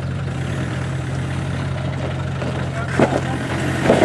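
Land Rover Defender 90's engine running at a steady low pitch as it crawls up a rocky ledge, with short sounds from about three seconds in.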